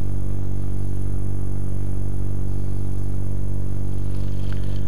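Small wood lathe running slowly at a steady speed, giving a constant motor hum while the bottle stopper turns on it.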